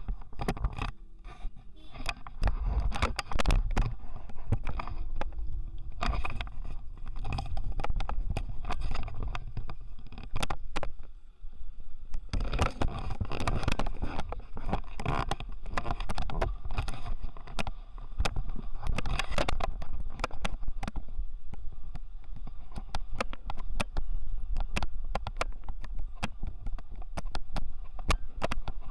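Car driving slowly over a rough gravel mountain track: a steady low rumble with constant rattling and sharp knocks as the body jolts over stones and ruts.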